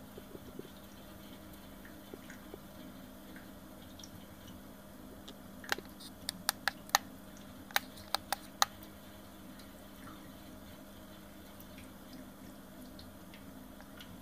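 A quick run of about nine sharp clicks, starting about six seconds in and lasting some three seconds, over a steady low hum.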